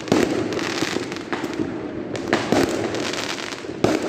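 New Year fireworks and firecrackers going off all around in a continuous dense crackle and rumble, with several sharper, louder bangs standing out.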